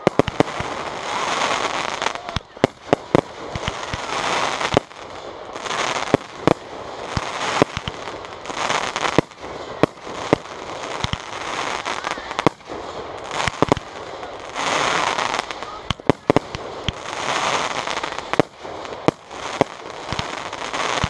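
Aerial fireworks shells bursting: many sharp bangs, some in quick strings, between stretches of dense crackling.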